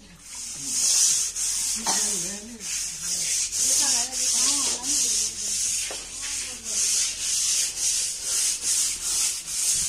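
Floor being scrubbed with a brush in brisk, even strokes, about two a second.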